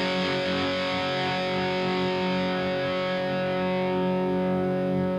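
Overdriven electric guitar through the Omega Series Micro battery-powered amplifier: one distorted chord held and ringing out, its treble fading near the end. Heard through a Greenback guitar-cabinet impulse with added reverb.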